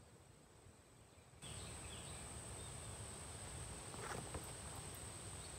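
Faint outdoor ambience: a steady high-pitched insect trill with low background rumble that comes in abruptly about a second and a half in, after near silence. A soft rustle of a book page turning about four seconds in.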